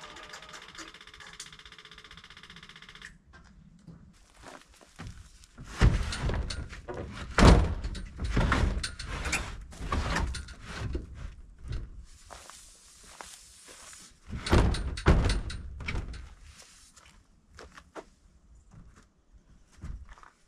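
Yanmar C30R crawler carrier's diesel engine idling and then shutting off about three seconds in. After that come irregular knocks and thumps of handling around the machine and the water tote's steel cage.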